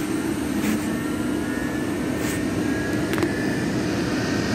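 Hamworthy Wessex Modumax Mk3 commercial gas boiler firing at 100% high fire: a steady rushing noise from burner and fan with a low hum, and three short sharp cracks. No pump is circulating water through it, and the boiler is kettling and overheating.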